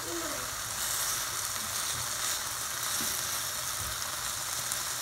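Tied, stuffed chicken breast rolls searing in hot oil in a stainless steel pan: a steady sizzle, the pan hot enough to brown a crust on the meat.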